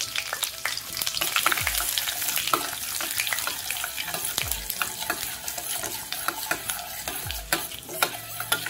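Black peppercorns and cumin seeds sizzling and crackling in hot ghee and oil in a steel pan, with a spoon stirring them around: the tempering of spices.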